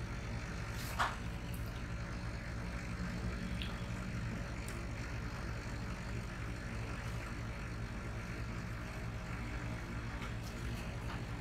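Marker pen writing on a whiteboard over a steady low background hum, with one sharp click about a second in.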